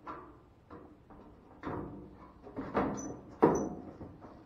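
Sheet-metal cover panel of a clothes dryer being handled and fitted into place: a series of knocks and scrapes, the loudest a sharp knock about three and a half seconds in.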